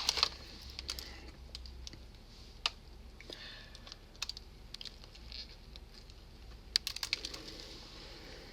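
Faint, scattered small clicks and taps from eating and handling food, with a quick cluster of clicks about seven seconds in.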